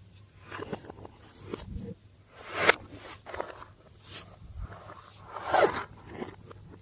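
Slime being squished and stretched by hand, sticky squishing and clicking in irregular bursts, the loudest a little before the middle and near the end.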